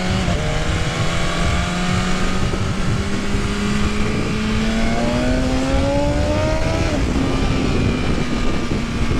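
BMW S1000RR inline-four engine running on a stand with its stock exhaust, its flap held open by a Brentune Stage 2 ECU flash. The revs climb slowly for about seven seconds, then drop back and hold steady at a raised idle.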